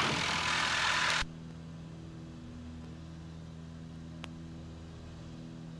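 The Piper Seneca II's twin turbocharged Continental six-cylinder engines running at low power after landing, heard inside the cabin as a steady low hum with several held tones. A hiss in the first second cuts off suddenly, and there is one faint click near the end.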